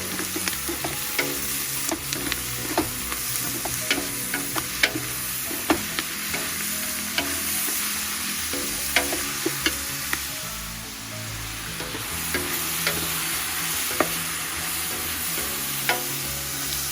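Onions and carrots sizzling in hot oil in a large pot while being stirred, with frequent sharp knocks of the stirring utensil against the pot.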